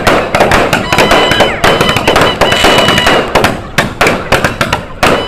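A dense barrage of firecrackers and fireworks going off in rapid succession, several sharp cracks a second with no break, and a few faint steady high tones running over them.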